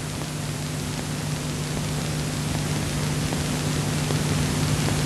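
Steady hiss with a low steady hum under it, slowly growing louder.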